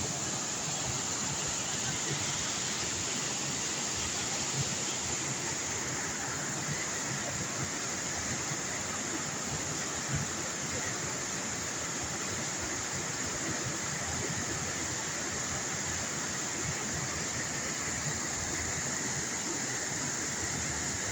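A waterfall's water pouring down in a steady, unbroken rush.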